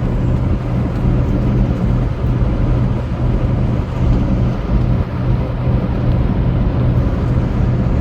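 Semi truck's diesel engine and road noise heard from inside the cab while driving: a steady drone with a low hum.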